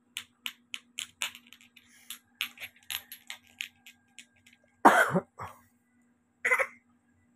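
A run of light clicks and taps, about three a second and uneven, for the first four and a half seconds, then a cough about five seconds in and a short voice sound about a second and a half later.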